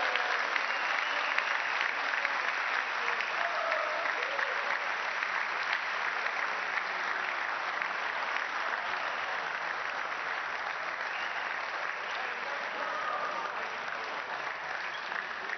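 Arena crowd applauding after a table tennis rally, a dense steady clapping with a few voices calling out, easing off slowly toward the end.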